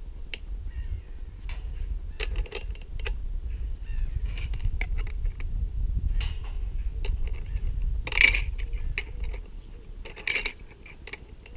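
Small metallic clicks and clinks as a cutting disc and its flange nut are handled and fitted by hand onto a cordless angle grinder, the loudest clack about eight seconds in. A steady low rumble runs underneath.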